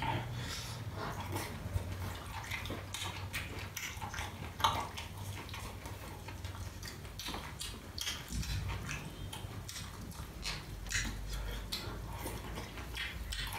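Close-up eating sounds: wet chewing and lip-smacking, with many short clicks of wooden chopsticks against a metal bowl.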